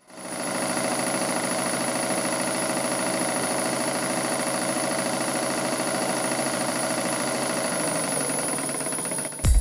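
Model steam engines running steadily on live steam, with a vertical engine belt-driving a small dynamo: a fast, even mechanical beat with steady tones running through it.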